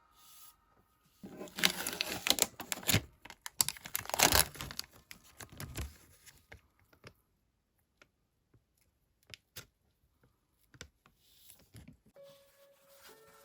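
Crinkling and tearing noises, dense for a few seconds, then a few scattered light clicks.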